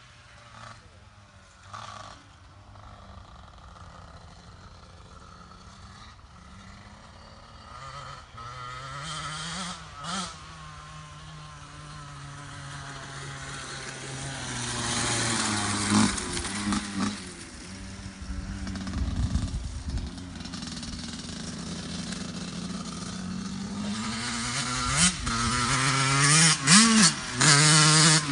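Suzuki RM85 two-stroke motocross bike riding, faint at first and growing louder as it comes closer. The revs swing up in short blips several times, most sharply near the end where it is loudest.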